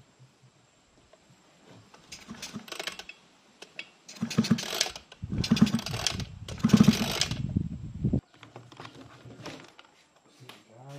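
Stihl FR 3000 backpack brush cutter's two-stroke engine being cranked with its recoil starter about three times in quick succession, each pull about a second long, starting about four seconds in. The engine does not fire, after some lighter rattling at the engine.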